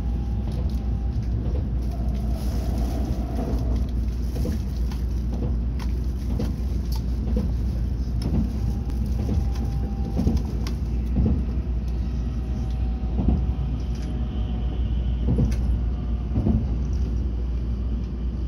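Moving commuter train heard from inside the carriage: a steady low rumble of wheels on rails, with repeated knocks about once or twice a second and a faint steady tone from the running gear.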